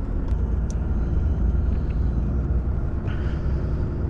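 Volvo FH16 timber truck driving, its engine a steady low drone with road noise, heard from inside the cab, with a few faint clicks.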